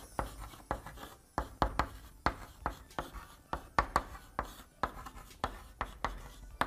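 Chalk writing on a blackboard: a quick run of sharp taps and short scrapes, about three a second, as the words of a sentence are written out by hand.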